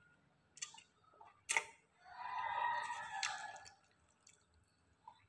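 Wet mouth sounds of a person eating palabok rice noodles: a few sharp smacking clicks and a slurp about two seconds in.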